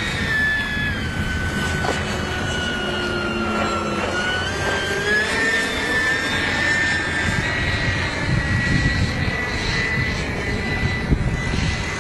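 Electric ducted fan of a Skymaster F-15 radio-controlled model jet in flight, a high whine. It falls in pitch over the first few seconds, then rises and holds steady.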